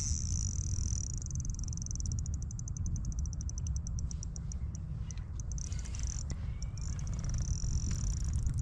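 Spinning reel's drag (Daiwa Fuego 2500 on light line) buzzing as a big hooked fish pulls line off: a steady high buzz, then about two seconds in it breaks into rapid clicks that slow and spread out, before buzzing steadily again near the end.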